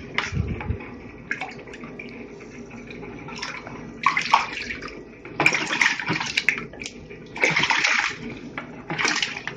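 Water splashing and pouring in four short bursts, with a dull low thump of handling about half a second in.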